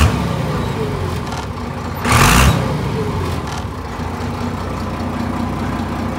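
Iseki 8020 compact tractor's diesel engine idling steadily, with one brief louder rush about two seconds in.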